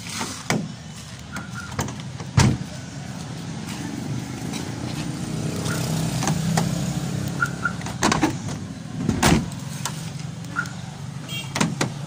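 Sharp clicks and knocks at a van's exterior door handle and locks as the newly installed car alarm is tested. A few short, high, faint beeps, one pair near the middle, sound over a steady low motor hum that swells and fades.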